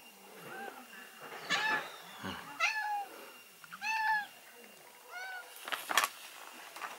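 Domestic cat meowing about five times, in short, high, arching calls about a second apart. Near the end a plastic snack bag gives a brief crinkle.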